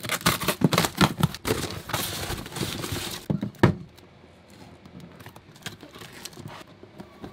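Parcel wrapping crinkling and tearing as it is pulled open, with a sharp snap about halfway through. After that, quieter small clicks and scrapes as scissors cut the seal on the cardboard box.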